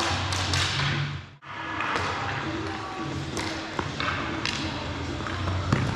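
Ball hockey play in an echoing gym: plastic sticks clacking on the floor and slapping the ball, with players calling out. The sound drops out sharply for a moment about a second and a half in.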